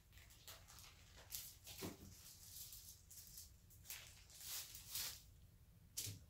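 Plastic packaging of a raw brisket rustling and crinkling in short, irregular bursts as the meat is pulled out and handled.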